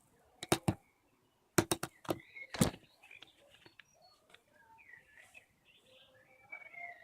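A few sharp clicks and knocks of small hard parts or tools being handled during a calculator repair: three about half a second in, then a quick cluster and one louder knock between one and a half and three seconds in. Faint bird chirping runs behind.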